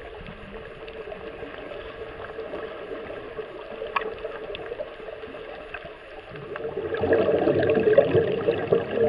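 Muffled rushing water noise picked up by an underwater camera, with a few faint clicks. It grows louder about seven seconds in.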